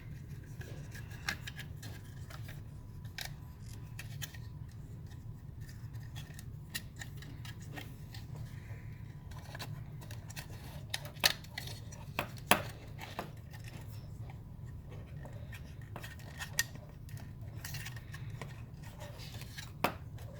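Light plastic clicks and taps as a circuit board is worked loose from the plastic housing of a car's A/C control unit, with a few sharper clicks around the middle and one near the end, over a steady low hum.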